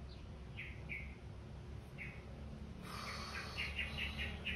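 Small birds chirping: a few separate short chirps, then from about three seconds in a quick run of repeated high notes.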